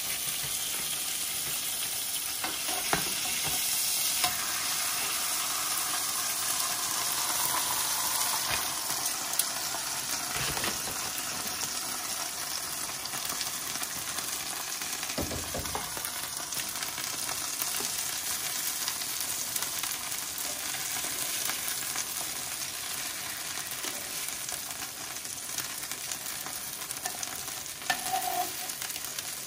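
Birria tacos and tortillas sizzling steadily as they fry in rendered beef fat on a stovetop griddle. A few light knocks and clicks of the metal tongs and ladle on the griddle, one near the end.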